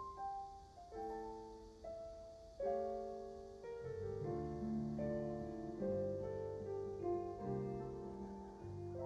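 Instrumental intro of a slow indie ballad on piano-sounding keyboard: single melody notes at first, joined by low bass notes about four seconds in.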